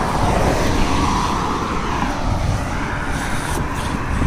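Wind buffeting the microphone of a moving bicycle rider, over the noise of fast road traffic; one passing vehicle swells about a second in and fades again.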